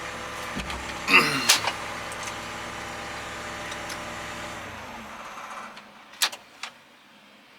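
Cat 320 excavator's diesel engine running, then shutting down and winding to a stop about five seconds in, followed by two sharp clicks.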